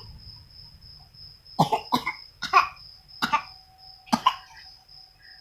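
A small child giving five short, deliberate fake coughs, a fraction of a second to a second apart.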